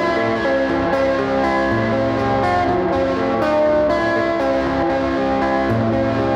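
Instrumental ambient music: a Gibson SG electric guitar washed in heavy reverb over a sustained drone. Long held chords with the bass note shifting every few seconds.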